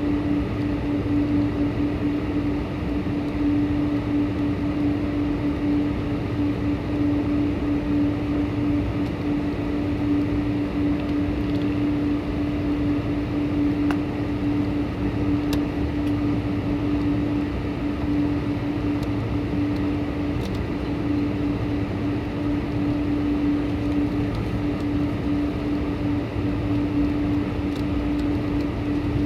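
Steady drone of a Boeing 747-400 airliner: an even rush of noise under one constant low hum, unchanging throughout.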